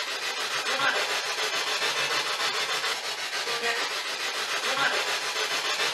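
Radio-sweep spirit box scanning: continuous choppy, scratchy static with faint snatches of sound as it skips between stations, one of which is captioned as a voice saying "I'm here".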